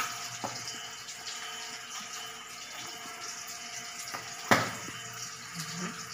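Steady hissing kitchen background noise with a faint hum, a few small clicks, and one sharp knock about four and a half seconds in.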